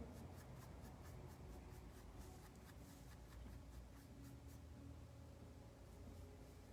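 Faint, quick strokes of a small paintbrush on a sign piece, several a second, stopping about four and a half seconds in.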